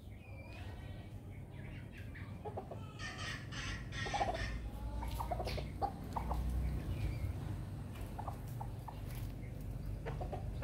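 Red junglefowl clucking as they forage: a scattering of short, low clucks starting about three seconds in, with a brief run of higher calls at about the same moment, over a steady low rumble.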